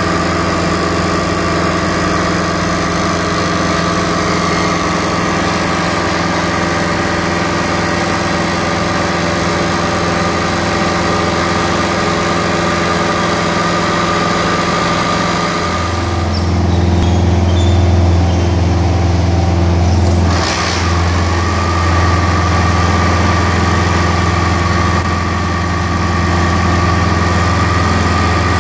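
Ride-on laser screed's engine running steadily as it levels fresh concrete, with a constant mechanical drone and whine. Partway through, the low engine hum becomes deeper and louder.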